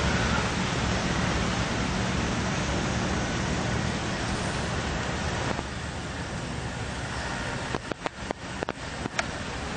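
Steady outdoor background noise with a low rumble, dropping a little about five and a half seconds in; a quick run of sharp clicks comes near the end.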